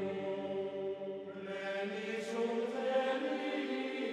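Background music of slow, sustained chant-like tones, like a wordless choir or drone, with higher notes coming in about a second and a half in.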